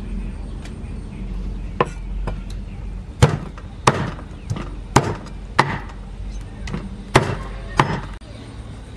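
Cleaver chopping bone-in raw chicken on a wooden chopping block: about eight sharp chops at an uneven pace, roughly one every half second to second.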